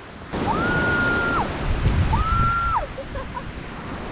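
Waves breaking and washing up a sandy beach, with wind on the microphone. Over the surf come two long, clean whistled calls, each rising, holding a high note and then dropping.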